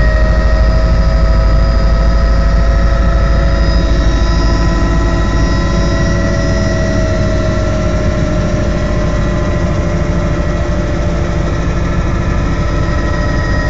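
Helicopter in flight: a loud, steady engine and rotor noise with several high, steady whining tones over it.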